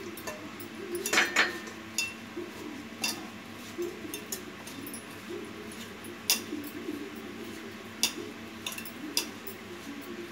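Hand mixing rava and maida with hot water in a steel bowl, with a short rush as water is poured from a steel pot about a second in. After that come sharp clinks every second or two from glass bangles and the hand striking the steel bowl.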